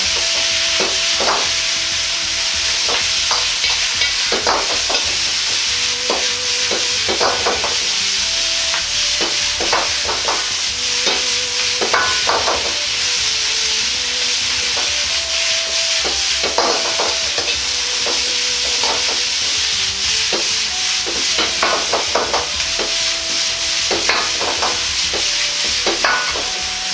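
Bok choy stems sizzling steadily in a hot Chinese wok over high heat, with a metal ladle scraping and clanking against the wok at irregular intervals as they are stir-fried.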